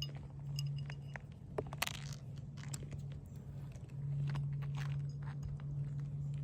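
Crunching and scraping of asphalt shingles being handled while the last nails of a replacement shingle go in, with a few sharp taps, two of them a little under two seconds in. A steady low hum runs underneath.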